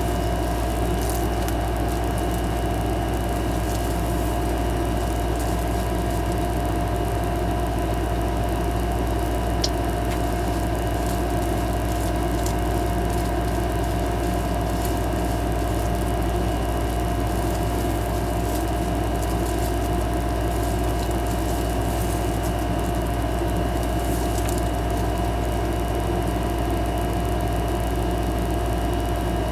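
Steady hum of a running machine: a constant low drone with a few steady whining tones over an even hiss, unchanging throughout.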